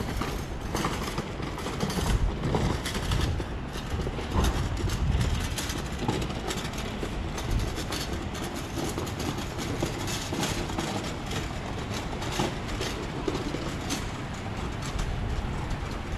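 Town-centre ambience heard on foot: footsteps on paving about twice a second over a steady low rumble of traffic.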